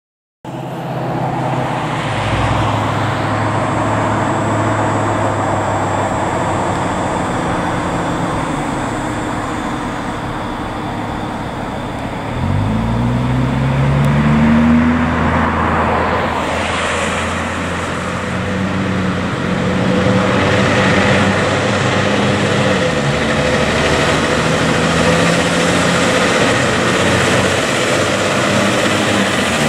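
Fire truck engine running steadily, then revving up with a rising pitch about twelve seconds in as the truck pulls away, and running on under load as it drives past.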